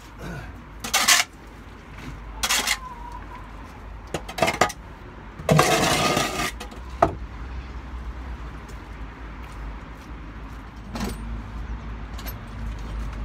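Metal shovel scraping across the floor as soiled bedding is scooped up: several separate scrapes and metallic clinks, the longest lasting about a second. A low rumble grows near the end.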